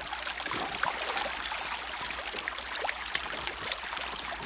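Shallow rocky creek running steadily, with the scattered splashes of rubber boots wading through the water.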